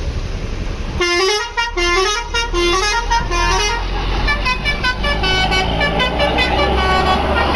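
Bus's Basuri telolet horn, a multi-tone musical air horn, playing about a second in: a short run of stepped notes repeated four times, then a longer tune of different notes. The low running of the bus engine sounds underneath.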